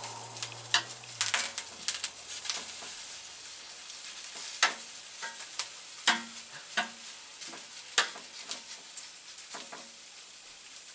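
Tomatillos and chiles roasting and sizzling in a hot pan: a steady hiss with frequent sharp pops and ticks, a few of them louder, as the charring tomatillos shake and spit.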